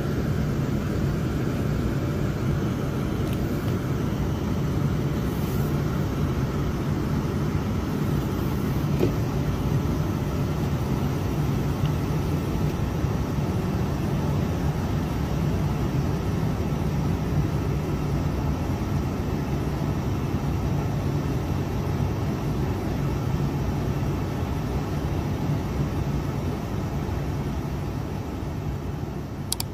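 Heavy diesel truck engine running steadily under load, a dense low drone that tapers off near the end.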